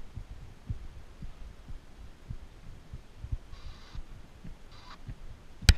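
Irregular low thumps and rumble on a body-worn camera's microphone, with two short soft hisses in the second half and a sudden loud knock right at the end.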